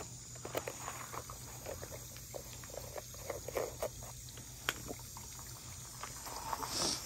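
Close handling noise from a plastic backpack water tank and its nylon strap being fitted and adjusted: scattered light clicks and rustles, with a brief louder rustle near the end.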